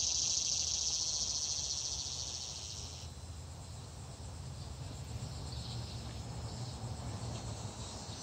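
Steady high-pitched buzzing chorus of insects, loud for the first three seconds, then dropping off abruptly to a fainter buzz.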